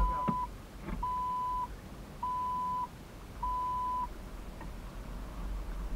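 Electronic beep at one steady pitch, about half a second long, repeating evenly about once every 1.2 seconds, four times, then stopping, over a low rumble.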